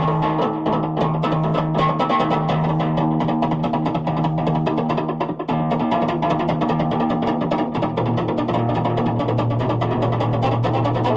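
Music with guitar and bass over a steady, fast beat; the bass shifts to a new note about halfway through and again near the end.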